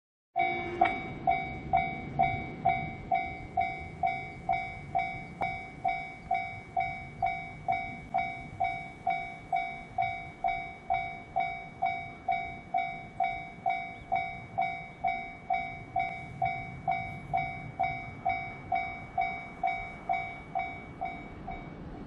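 Japanese railway level-crossing warning bell ringing its electronic ding-ding at a little over two strikes a second, signalling that a train is approaching; it stops about a second before the end.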